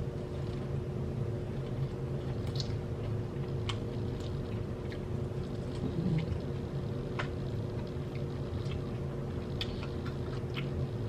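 Chewing and biting into a fried chicken sandwich: scattered soft mouth clicks over a steady low hum.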